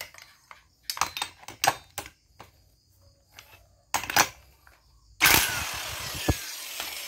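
Metal clinks as a socket is set on the flywheel nut of a two-stroke grass trimmer engine. Then, about five seconds in, a power tool starts suddenly and whirs steadily, spinning the nut off so the flywheel can be removed.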